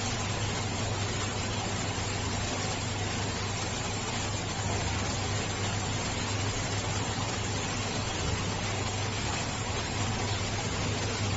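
Steady hiss with a constant low hum, the running noise of aquarium equipment such as a pump or filter.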